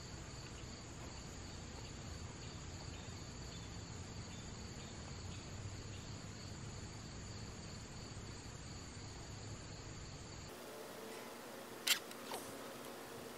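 Crickets chirring steadily in a high, even drone, which cuts off abruptly about ten seconds in. Near the end comes one sharp knock, with a fainter one just after.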